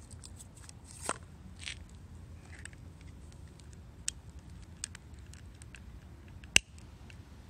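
Faint, scattered sharp clicks and small pops over a steady low background, with one sharper click about six and a half seconds in.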